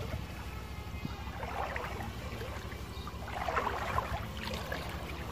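Shallow ditch water sloshing and trickling around feet wading through it, over a steady low rumble.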